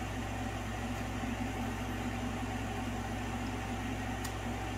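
Steady low room hum, with one faint click about four seconds in.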